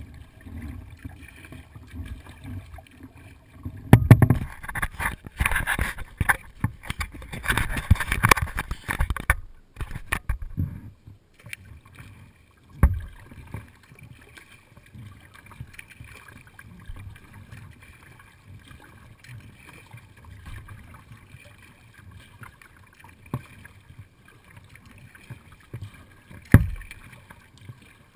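Water splashing and lapping against a kayak's hull close to the microphone as the kayak is paddled, heavy and irregular for several seconds starting about four seconds in, then quieter. Two sharp knocks, one near the middle and one near the end.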